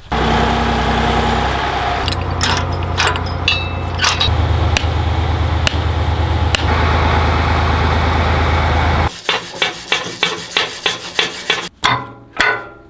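A steady, loud machine hum with a low drone, with a few clicks and short high pings in it, which cuts off abruptly after about nine seconds. It gives way to a fast run of sharp knocks, about four a second.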